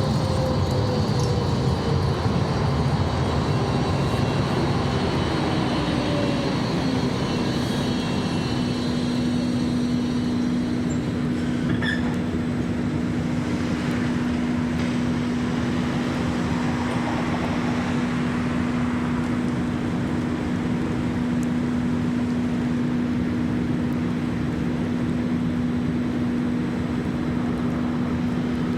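Electric tram slowing, its motor whine falling in pitch over the first several seconds and settling into a steady low hum, over a constant rumble.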